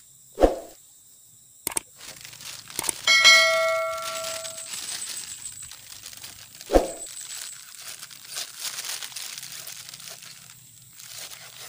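A machete chopping into a tarap fruit: two heavy thuds, one just after the start and one about seven seconds in, with a ringing metallic clang just after three seconds that fades over a second or so, and rustling and scraping between the strokes.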